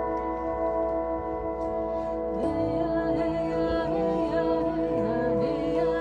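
Set of hanging flat metal plate bells, tuned to an ancient Greek mode, ringing with many overlapping sustained tones. About halfway through, wavering tones that glide up and down in pitch join over the ringing.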